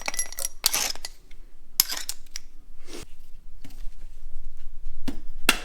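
Metal tools and engine parts clinking and knocking against each other in an irregular series of sharp clanks. The first clanks ring briefly, and a quick run of knocks comes near the end.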